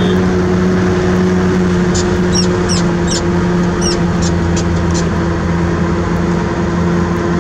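Heavy diesel engine running steadily at one even speed, a low constant drone. Several short high chirps sound over it between about two and five seconds in.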